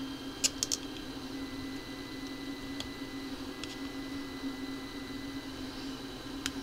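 Small metal tool prying and bending out the metal retaining tabs of a Technics 1210 pitch fader, giving sharp little clicks: a quick run of three about half a second in, then single clicks near three, four and six and a half seconds. A steady low hum sits underneath.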